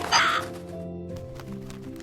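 Background music of steady held notes, with one short, harsh bird call near the start.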